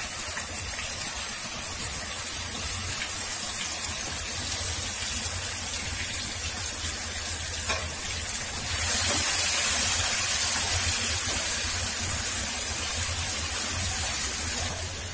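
Onion paste frying in hot oil in a non-stick pan: a steady sizzling hiss that grows louder about nine seconds in.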